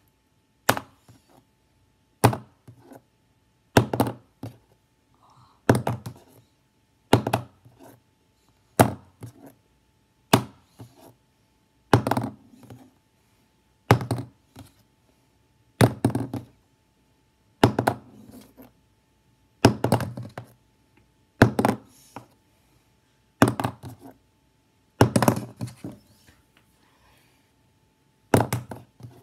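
A plastic highlighter being flipped and landing on a hard surface again and again, a sharp thunk about every second and a half to two seconds, most followed by a short clatter as it bounces or tips over.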